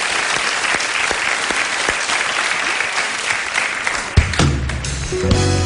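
Studio audience applauding. About four seconds in, a heavy thump and a bass beat of music start up under the applause.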